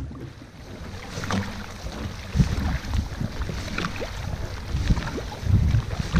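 Dragon boat paddles dipping and pulling through the water, a splash about once a second, heard from just above the waterline.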